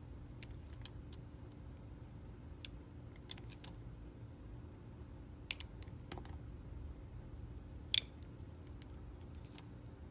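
Clear soap bar being cut with a snap-off utility knife blade: scattered light clicks and crackles as slivers come away, with two louder snaps, one a little past halfway and one about two and a half seconds later.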